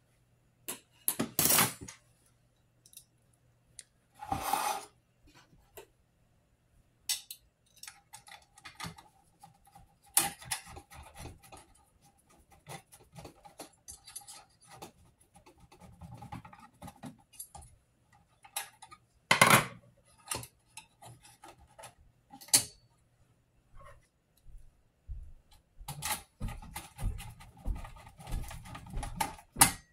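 Hands and a screwdriver working on an open sheet-metal power supply case while fitting its cooling fan: scattered clicks, scrapes and metallic clatter, with several sharp knocks.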